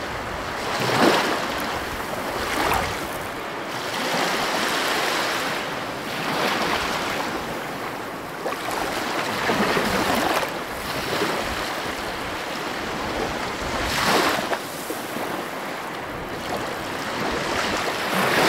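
Ocean water washing and surging at the shoreline, a steady rush that swells and falls off again at uneven intervals of one to four seconds.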